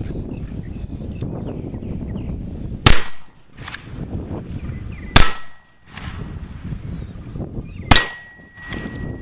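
Three shots from an 1858 Remington percussion black powder revolver, about two and a half seconds apart, each a sharp crack with a short echo tail. Fainter clicks come between the shots.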